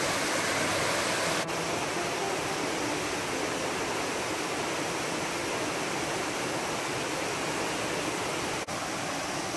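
Steady rushing of a small waterfall cascading down a rocky forest creek, dipping for an instant twice.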